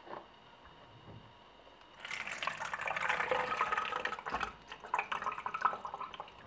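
Water running and splashing in a kitchen, starting suddenly about two seconds in and turning choppier toward the end.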